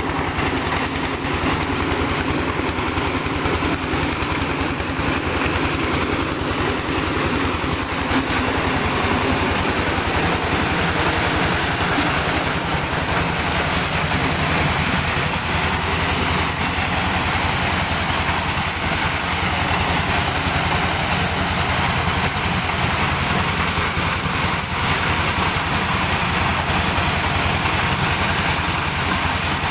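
Diesel engine running steadily under load, driving a corn sheller as cobs are fed in and threshed, with the rattle of the threshing drum mixed in.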